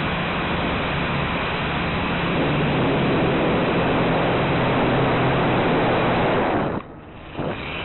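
Blade 180QX quadcopter's motors and propellers running, heard from its onboard camera as a steady rushing noise over a low hum. Near the end the whole sound drops away sharply for about half a second, then comes back.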